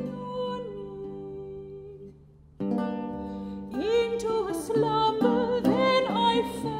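Soprano and Renaissance lute performing a lute song. A held sung note dies away and the music nearly stops; the lute strikes a chord about two and a half seconds in, and the soprano comes back in singing with vibrato about a second later.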